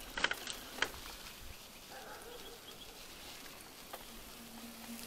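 Faint rolling noise of a mountain bike riding along a dirt track, with two sharp clicks in the first second and faint bird calls in the background.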